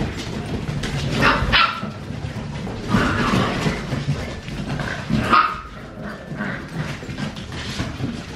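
Siberian huskies barking and yipping in short calls, with the loudest barks about one, three and five seconds in.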